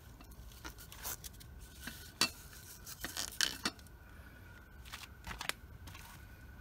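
Hands fastening a fabric strap around a metal fuel bottle on a motorcycle frame: scattered rustles, light knocks and clinks, busiest around the middle.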